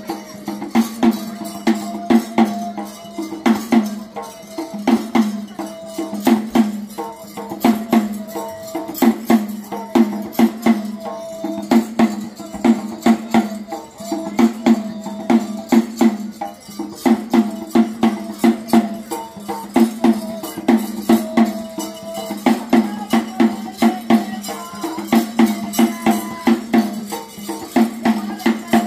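Traditional ritual percussion music: drums beaten in a fast, steady, repeating rhythm with sharp jangling metal percussion over it, and a thin held melody tone above the drums.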